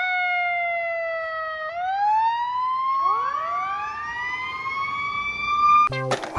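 Fire engine siren wailing. The pitch winds up, sags slowly, then climbs again, and a second wail rises in alongside it about three seconds in. The siren cuts off abruptly near the end as music starts.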